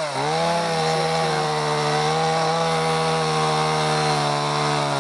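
Two-stroke chainsaw held at full throttle, cutting into a tree, its engine note steady under load. The note sags briefly near the end and picks up again.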